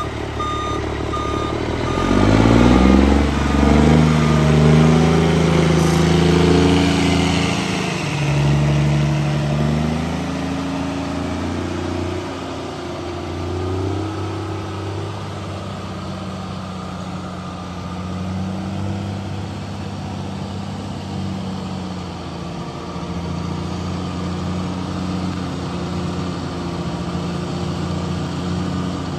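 Heavy diesel equipment at work: a backup alarm beeps briefly at the start. Then the engine revs up hard, falls back after a few seconds and keeps running fairly steadily.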